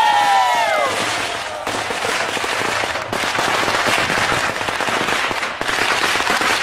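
A long string of Tết firecrackers going off in a continuous, dense rapid crackle, loud throughout with only brief dips. A short call falling in pitch sounds over it at the very start.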